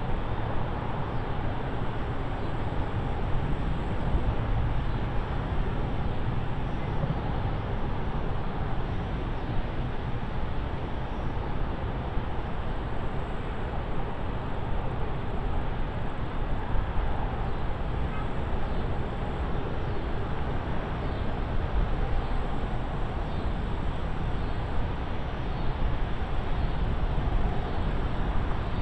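Steady wind noise on the microphone: a constant rushing hiss, heaviest in the low end, with no distinct events standing out.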